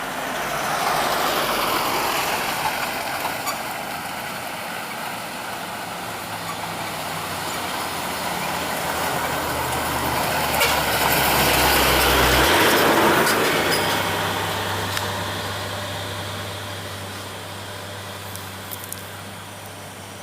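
Heavy truck's diesel engine running, swelling louder twice as it works through the bend, with a sudden change in engine note about twelve seconds in.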